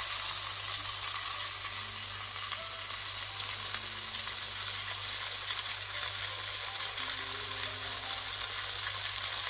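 Flour-dusted plaice fillets sizzling steadily in olive oil in a stainless steel pan, a gentle shallow fry over lowered heat, with fine crackling throughout. A low steady hum runs underneath.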